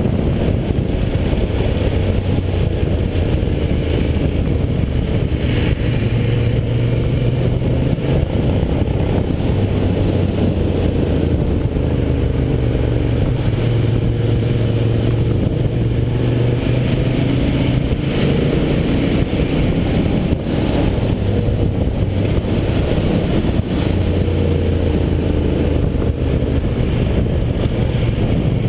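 Ducati Diavel's L-twin engine heard from an onboard camera, riding through city traffic: the revs rise and fall several times as it accelerates and eases off, over steady road and wind noise.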